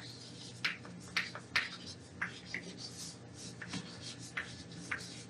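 Chalk writing on a chalkboard: a string of short strokes and taps at irregular intervals.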